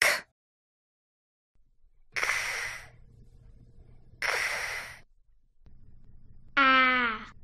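Letter sounds spoken for a phonics lesson: a short breathy, unvoiced 'k' sound for the letter C, then two longer ones from a girl, about two seconds apart. Near the end the girl says a short 'a' sound, her pitch falling slightly.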